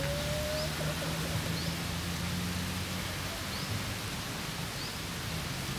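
Steady outdoor background hiss with a low hum. Near the start there is a soft whistle-like note that rises slightly, and faint short rising chirps, like a bird's, repeat about once a second.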